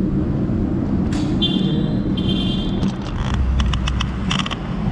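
Steady low rumble of road traffic and engine noise. A run of high-pitched chirping tones comes through about a second and a half in, with scattered sharp ticks.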